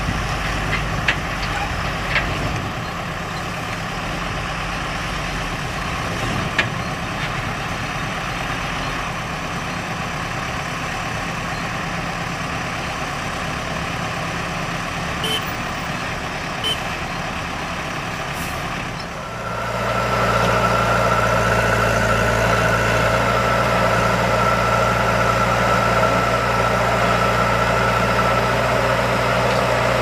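Heavy diesel engines of a Tata tipper truck and a JCB backhoe loader running, with a few light clicks. About two-thirds of the way through, the sound becomes louder and steadier, a low engine drone with a high steady whine over it.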